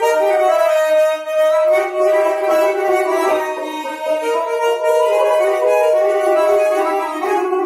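Azerbaijani tar and garmon (button accordion) playing a traditional melody together, one long note held steady over a moving melody line.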